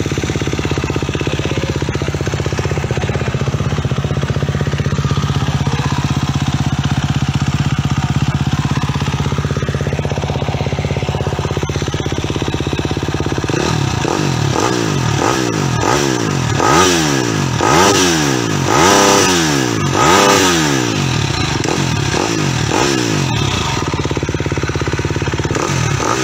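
KTM trail-bike engine swapped into a Honda CB100, idling steadily, then revved in a run of about eight quick throttle blips through the second half before settling back to idle.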